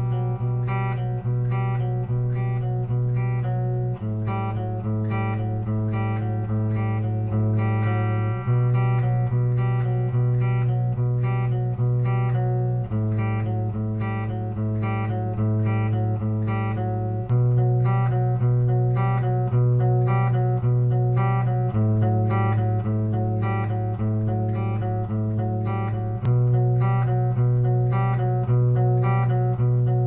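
Instrumental guitar music: a picked pattern of plucked notes over ringing low notes, the chord changing about every four seconds.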